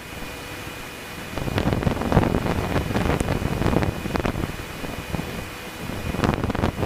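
Wind buffeting the camera's microphone on a Cessna 150 in flight, over the steady drone of the airplane's engine and propeller. The wind gets louder and gustier about a second and a half in.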